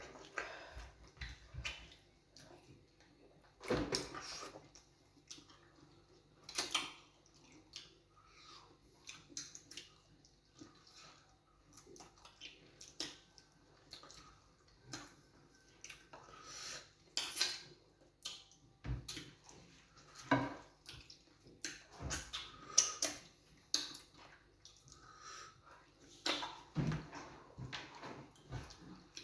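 Close-up eating sounds of fufu and groundnut soup: irregular wet, squelchy mouth and hand noises with scattered clinks of dishes.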